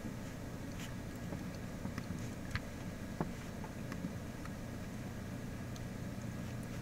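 Steady low hum of room tone with a handful of faint, scattered clicks from a computer mouse.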